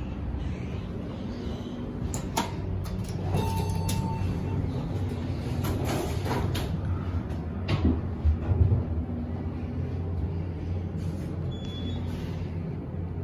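Modernized Otis hydraulic elevator's doors sliding, with several clicks and knocks, a short beep about three and a half seconds in and a louder clatter of knocks a little past the middle, over a steady low hum.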